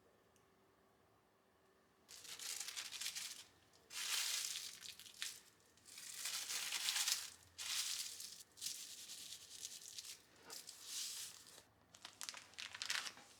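Crinkly wrapping material being crumpled and handled in a string of rustling bursts, each lasting about a second, starting about two seconds in.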